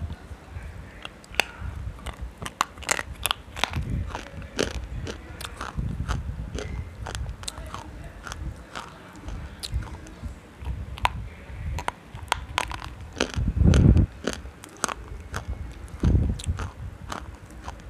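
Close-miked biting and crunching of a hard white chalky lump, likely sel khadi (a soft edible stone), giving many sharp, crisp cracks. There is a dull low thump about fourteen seconds in, the loudest sound, and another a couple of seconds later.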